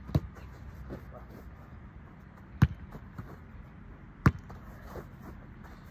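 Sharp thuds of a football being struck and caught in goalkeeper training, three loud ones: just after the start, about two and a half seconds later, and again under two seconds after that.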